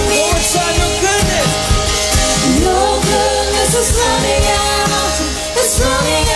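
Worship band performing live: a man and two women singing a slow song together, accompanied by acoustic guitar.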